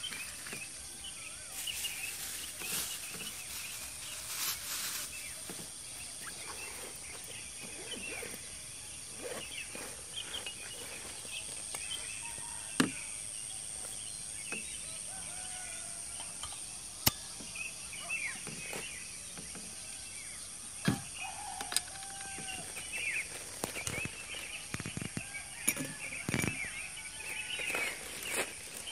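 Evening outdoor ambience: a steady high insect drone with scattered bird chirps throughout. Over it come soft rustles of food and plastic bags being handled, with two sharp clicks about halfway through.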